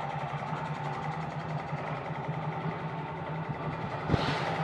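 Small electric pump humming steadily, drawing water out of the boat hull through hoses into a sealed glass jar. A short hiss comes about four seconds in.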